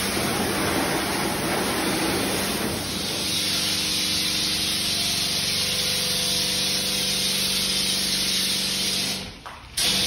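Steam pressure washer wand spraying the underside of a car on a lift: a steady hiss of spray, joined about three seconds in by a steady hum. The sound drops out briefly near the end.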